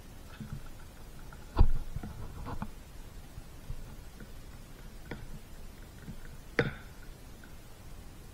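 Dog gnawing a raw lamb leg bone: irregular sharp cracks and clicks of teeth on bone with wet chewing in between. The loudest crack comes about a second and a half in, and another sharp one comes near the end.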